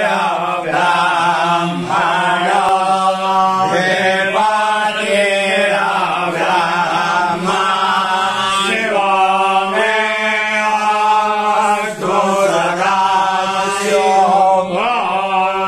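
Devotional mantra chanting in a melodic, sung line over a steady low drone.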